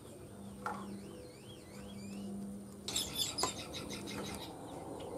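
A bird calling in the background, a quick run of wavering up-and-down slurred notes, followed about three seconds in by a brief cluster of sharp clicks and knocks.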